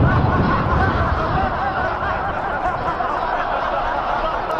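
A crowd of men laughing and snickering together in derision, many voices overlapping in a steady mass of laughter.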